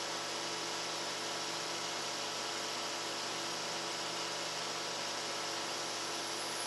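Steady electrical hum over a constant hiss from running computer hardware. It holds unchanged throughout.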